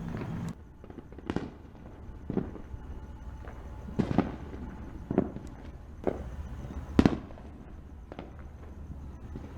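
Distant fireworks going off in a string of separate bangs, roughly one a second, each echoing briefly. The loudest comes about seven seconds in.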